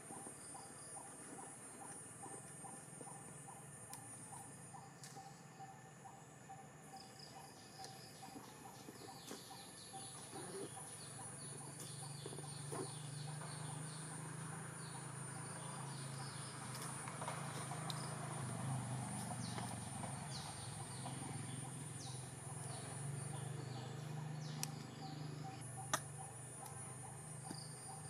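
Forest ambience: a steady high-pitched insect buzz with many short repeated chirps over it. A low hum comes in around the middle, and there is a single sharp tap near the end.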